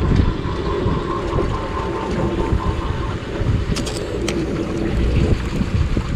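Wind buffeting the microphone on a sportfishing boat at sea, over a steady low rumble, with a few sharp clicks about four seconds in.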